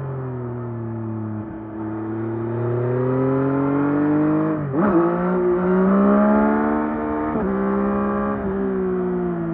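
2024 Yamaha MT-09 SP's 890 cc inline three-cylinder engine on its stock exhaust, under way. The revs fall off at first, then climb under throttle, with two quick upshifts where the pitch drops sharply, about halfway through and again near three-quarters of the way through.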